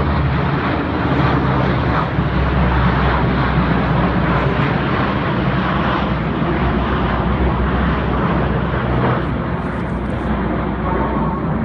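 Steady drone of a transport aircraft's engines flying over the drop zone.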